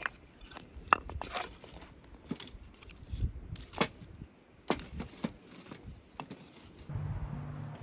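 Split firewood being set on a small burning fire in a folding metal fire pit: scattered sharp clicks and knocks of wood on wood and on the steel pan, the loudest about a second in. Near the end a steady low hum comes in.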